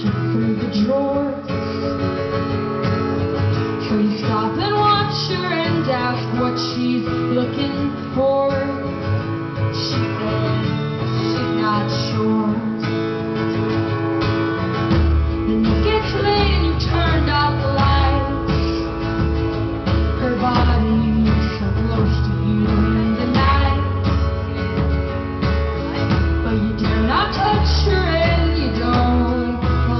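Live acoustic band performance: female vocals over strummed acoustic guitar, with a heavy, boomy low end coming in about halfway through, recorded with poor, overloaded bass.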